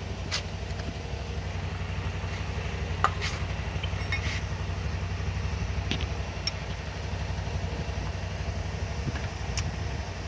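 Kei truck engine idling steadily, with a few light metallic clinks scattered through it.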